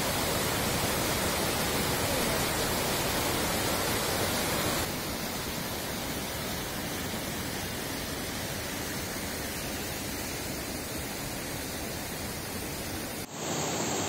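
Mountain stream in spate rushing over boulders, a steady, even sound of churning water that drops a little in level about five seconds in. The stream is running high and strong after heavy rains.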